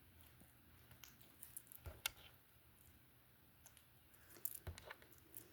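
A few faint clicks and light taps of small items being handled, around two seconds in and again near the end, over near silence.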